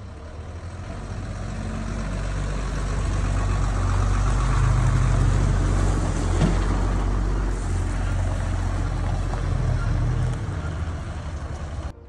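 Heavy tow truck engine running with a deep, steady rumble. It grows louder over the first few seconds and eases off a little near the end, with a single short knock about six and a half seconds in.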